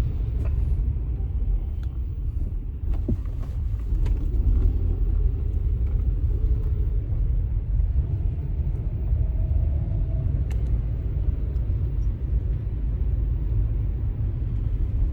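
Car cabin road noise while driving: a steady low rumble of engine and tyres on wet road, with a few faint clicks.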